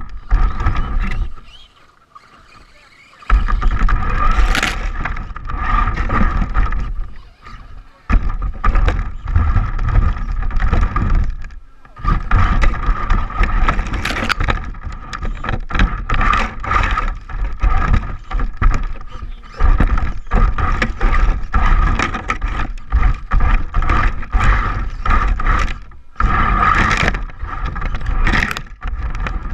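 Electric RC short-course trucks (Traxxas Slash 4x4) driving on desert dirt: a steady motor whine over tyre and gravel noise, coming in runs with short breaks, the longest about two seconds in.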